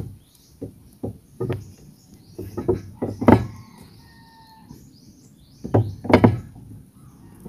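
Irregular metal knocks and clunks from a new suspension arm on a Suzuki multicab being worked into its mount by hand, a few of them ringing briefly. The knocks come in two bunches, with a quieter stretch between.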